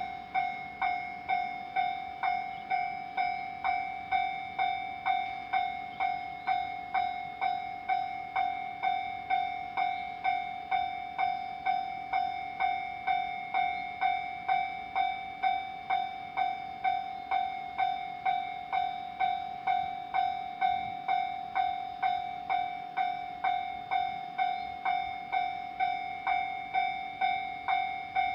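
Japanese railroad crossing warning bell ringing steadily, a repeated ding about one and a half times a second, each strike ringing on into the next.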